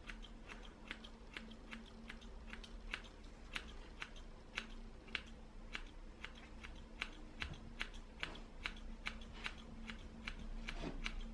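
Hairdressing scissors point-cutting into the ends of a ponytail of thick hair: a faint run of small crisp snips, about two a second.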